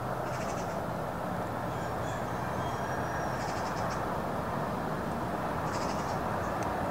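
Steady rushing outdoor noise, with three brief high, rapidly rattling chirps: one about half a second in, one midway and one near the end, and a couple of faint thin whistles between them.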